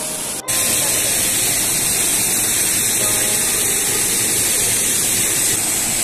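Steady rushing of a waterfall, cutting in abruptly about half a second in.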